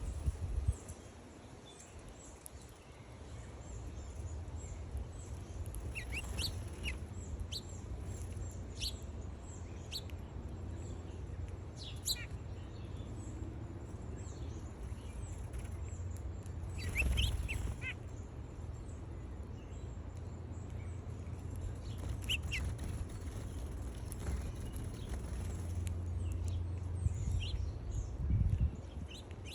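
Birds chirping at a feeder: short, high chirps and calls scattered throughout, over a steady low rumble.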